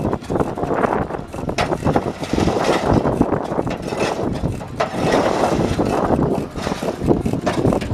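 Stationary engines running, an irregular clatter of knocks over a steady mechanical noise.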